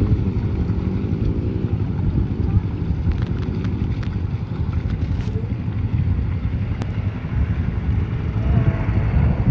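Honda off-road vehicle's engine running steadily through mud, with wind buffeting the microphone.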